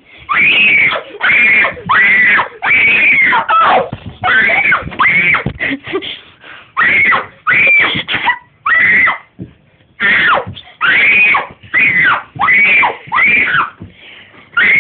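A child screaming over and over: short, loud, high shrieks, each rising and falling in pitch, about one a second with brief pauses between them.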